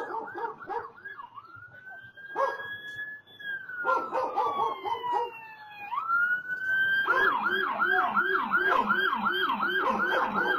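Emergency vehicle siren: a fast yelp, then a slow wail rising and falling in pitch, then back to a louder fast yelp of about four sweeps a second from about seven seconds in.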